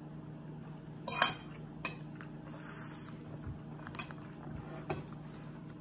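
A metal fork clinking and scraping against a ceramic plate of pasta a few separate times. The sharpest clink comes about a second in.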